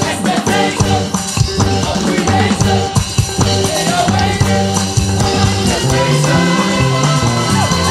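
Live church praise band playing on drum kit and bass, with singers singing into microphones over it.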